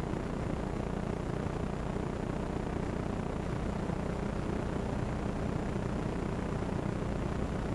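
Steady low rumbling background noise that does not change, with no bird calls or pecking standing out.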